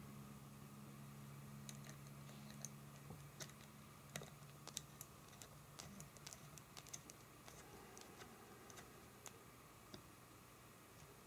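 Faint scattered clicks and ticks of small screws and a screwdriver against the iron mounting plates as a hard drive is screwed into a 5.25-inch-bay stabilizer bracket.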